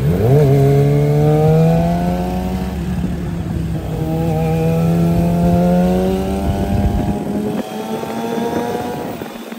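Kawasaki ZX-25R's 250 cc inline-four engine revving up as the bike accelerates. The pitch climbs, breaks off about three seconds in, climbs again, drops about seven seconds in and climbs once more, like upshifts through the gears.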